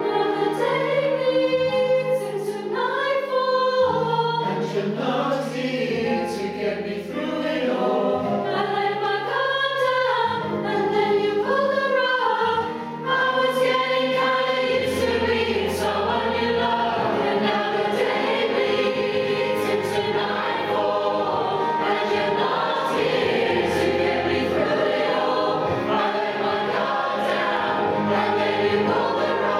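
Mixed choir, mostly women's voices, singing a song in harmony over a recorded backing track with held low notes.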